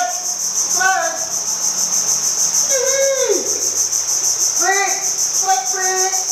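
A steady, high-pitched, pulsing insect chorus, crickets or cicadas, with a few short calls over it that rise and fall in pitch, one gliding down about three seconds in.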